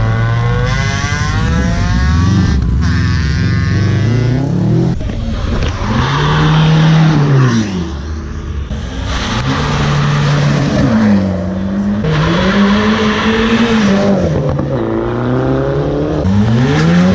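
Cars pulling away hard one after another, a Subaru Impreza first: the engines are revved up, with the revs climbing, holding and dropping again several times.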